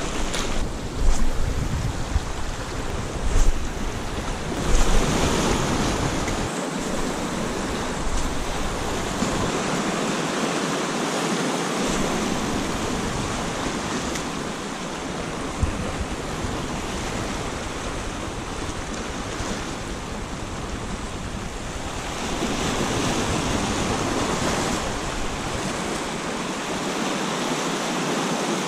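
Sea surf washing over and around rocks: a steady rush of breaking waves, with a few louder bumps in the first five seconds.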